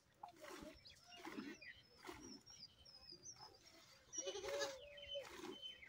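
Cow being milked by hand into a steel bucket: short squirts of milk hitting the pail at an uneven rhythm, about one every half second to second. A goat bleats about four seconds in, the loudest sound.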